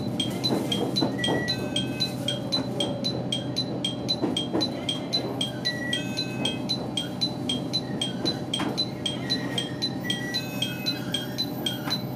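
A high, chime-like ringing repeating evenly at about three strikes a second, with a short two-note chime sounding every four or five seconds. Beneath it is the steady low running noise of the 815 series electric train as it pulls slowly along the platform.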